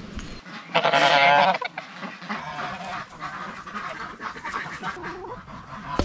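A domestic goose honks once loudly about a second in, followed by quieter bird calls.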